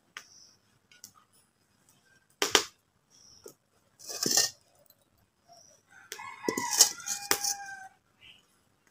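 A rooster crowing, one drawn-out call in the last third. Before it, a sharp knock and a short rattling clatter of kitchen utensils.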